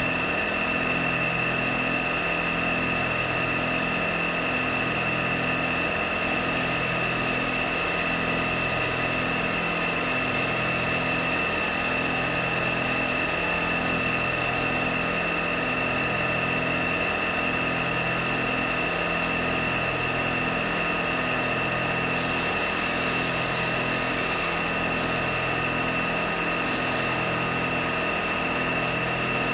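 Drilling machine spindle running steadily with a high whine, drilling a bolt hole through a small steel hinge part held in a vise.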